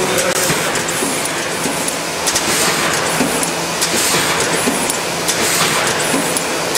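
Foliant Pollux 760SF sheet-fed laminating machine running: a steady mechanical noise with repeated, irregular clicks and clacks.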